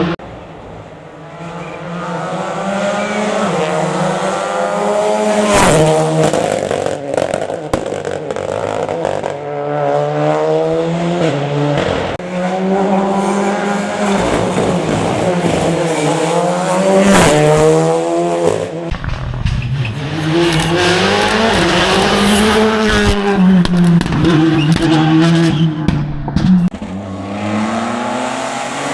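Rally car engines revving hard, pitch climbing and dropping again and again through gear changes and braking, with a few sharp cracks and tyres squealing at times.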